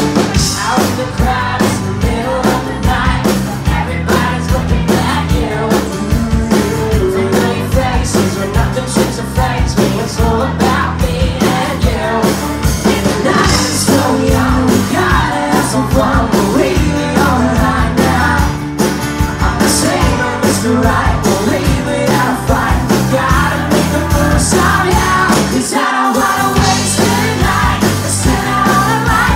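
Live acoustic pop song: a male voice singing over two strummed acoustic guitars, amplified through microphones.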